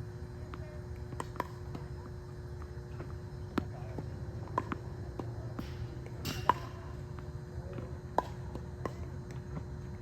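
Tennis practice against a ball machine: sharp single pops of tennis balls being launched, struck and bouncing, about one a second and loudest a little past the middle, over a steady low hum.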